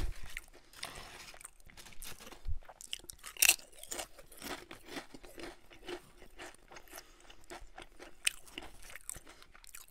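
Crunching and chewing of thick, ridged Ruffles All Dressed potato chips, the sharpest crunches about three and a half seconds in and again near eight seconds.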